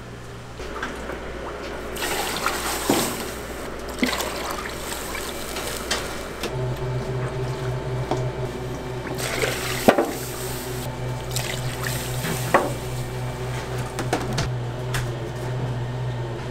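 Broth being scooped from a plastic bucket and poured into a steel tray, with splashing and clinks of metal, loudest a couple of seconds in and again around halfway. A steady low hum comes in about six seconds in and stays.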